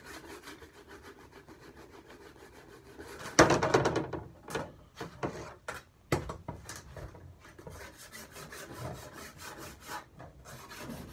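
Scraping and rubbing on a dog sled's runner: one loud, long scrape about three and a half seconds in, then a quick run of short scraping strokes, with fainter rubbing around them.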